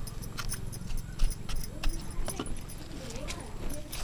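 Irregular sharp clicks and crackles of dry, papery leaf sheaths being torn and stripped by hand from the base of a ghuiya (taro) plant, over a low steady hum.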